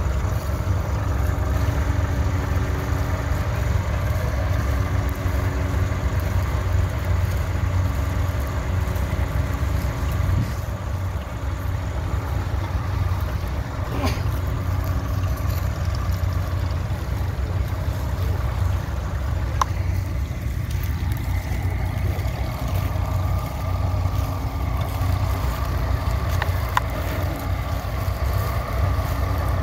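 Tractor engine running steadily under load, a continuous low rumble, with a couple of brief clicks.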